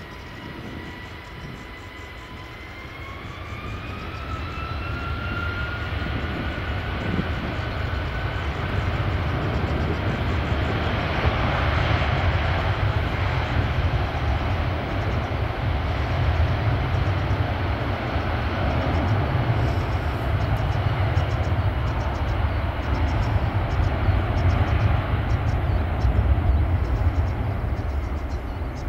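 Boeing 757-200's Rolls-Royce RB211 turbofans spooling up to takeoff thrust. A whine rises in pitch over a few seconds, then the engines run loud and steady through the takeoff roll as the jet accelerates away.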